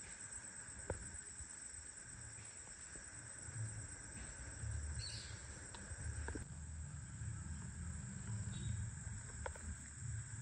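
Steady insect chorus, an even high-pitched buzzing that holds unchanged throughout, over a low, uneven rumble and a few faint clicks.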